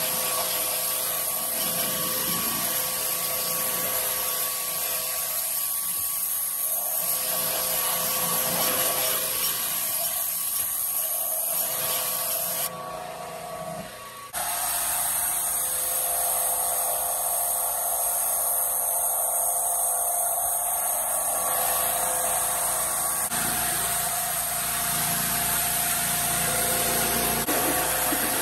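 Pressure washer running: the motor and pump hum steadily under the hiss of the water jet spraying a golf cart's wheel and body. The sound dips briefly about halfway through.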